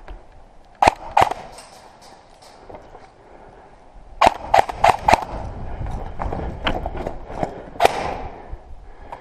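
Airsoft guns firing single sharp shots: two about a second in, a quick run of four around four to five seconds, and one more near eight seconds.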